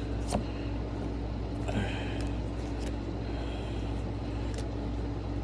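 A steady low hum with a faint constant tone above it, and over it a few light clicks and a soft rustle from Pokémon cards being flipped through by hand.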